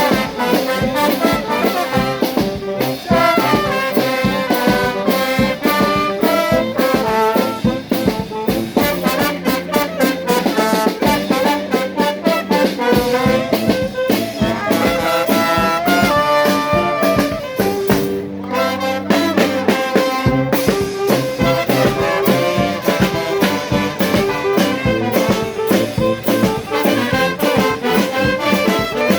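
A charanga brass band plays a lively tune: trumpets and trombones over a steady drum beat. The drums drop out for about a second just past the middle.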